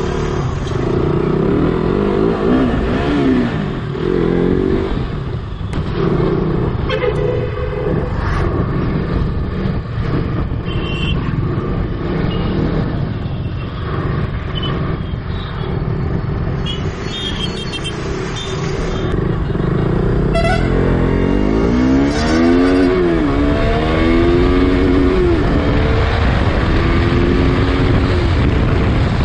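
KTM RC 200's single-cylinder engine revving through the gears under hard acceleration, its pitch climbing and dropping at each shift. Horns from other traffic sound briefly a few times, and wind noise builds at speed near the end.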